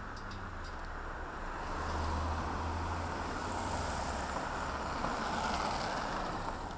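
Road traffic: cars passing on a city street, with tyre and engine noise that swells about two seconds in and eases off near the end.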